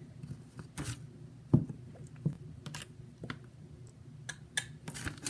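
Scattered light clicks and knocks of small containers and supplies being handled and set down on a tabletop, with a louder thump about one and a half seconds in.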